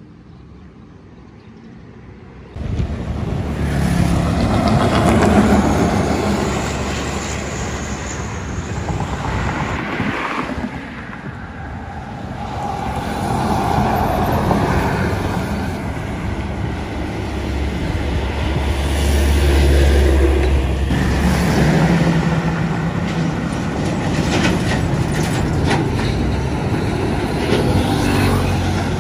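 Quiet roadside sound, then, about two and a half seconds in, a sudden jump to large diesel coach buses passing on a concrete highway one after another, among them a Daewoo BH117 and a Hyundai Universe. Engine rumble and tyre noise swell and fade with each pass.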